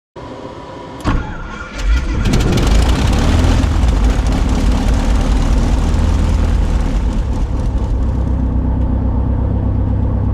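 Van's RV-14A's four-cylinder Lycoming IO-390 engine being started: about two seconds of starter cranking, then the engine catches and settles into a steady idle.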